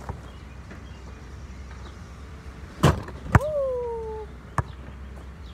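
A basketball strikes the hoop's backboard and rim with two hard knocks about half a second apart, followed by a short tone that falls slightly in pitch for about a second, then one more knock.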